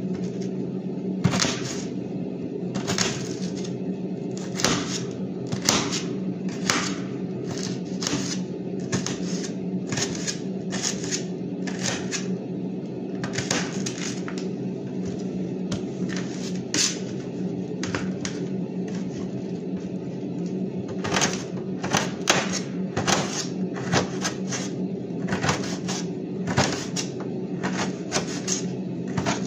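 Kitchen knife cutting green vegetables on a plate: sharp taps of the blade, about one a second, with a break of a few seconds past the middle. A steady low hum runs underneath.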